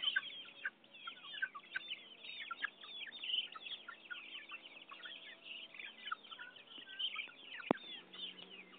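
A flock of chickens calling while feeding: many short, high chirps and clucks overlapping without pause. There is a single sharp click near the end.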